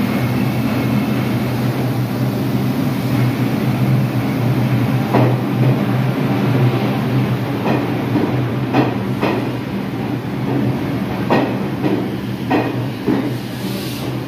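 New York City subway train running on the rails, with a steady motor hum and irregular sharp clacks from the wheels over rail joints, several of them in the second half.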